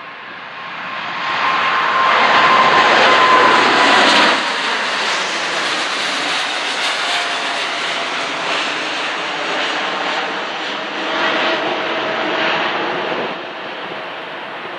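Four GEnx turbofan engines of a Boeing 747-8F freighter at takeoff power as it climbs out past overhead. The noise swells about a second in and is loudest for the next few seconds, with a high whine slowly falling in pitch, then carries on steadily and a little lower as the jet climbs away.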